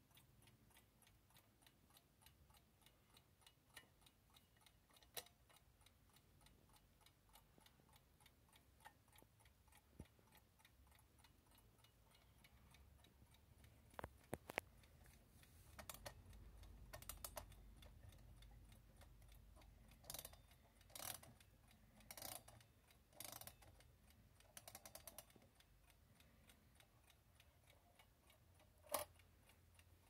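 Antique Veglia mechanical alarm clock ticking faintly and steadily at a quick, even beat. In the second half there are handling noises: a couple of sharp clicks, scraping and rubbing as the clock is turned in the hands, and one loud click near the end.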